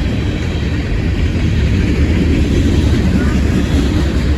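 Freight train rumbling steadily close by, a continuous deep rumble with a hiss above it.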